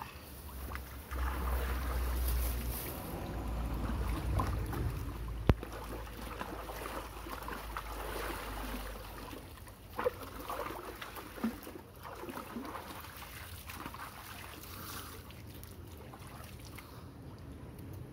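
Water splashing and sloshing as bathers wade and move about in a pool, with a low rumble on the microphone through the first half and one sharp click about five seconds in.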